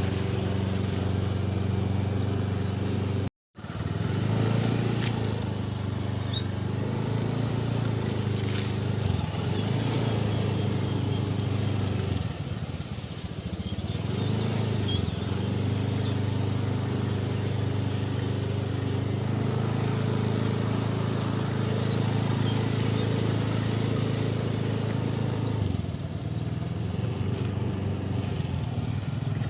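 An engine running steadily at an even idle, with a brief cut to silence about three seconds in.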